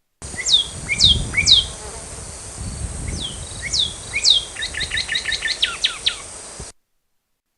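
Northern cardinal singing: a series of clear whistles that slur down in pitch, given in groups, then a quick run of short repeated notes. The song cuts off suddenly near the end.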